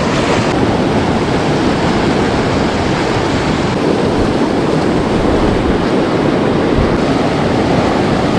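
Swift creek current rushing steadily and loudly, the stream still running high and fast after a flood.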